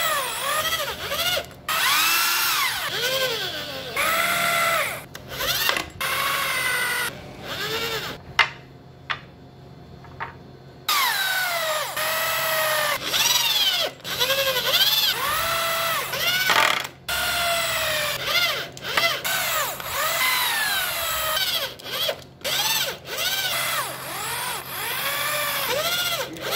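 Corded electric drills boring holes into wooden slats in a series of short trigger pulls, the motor whine rising as each run starts and falling away as it stops. After a pause of a couple of seconds there is one longer run of about six seconds, then more short bursts.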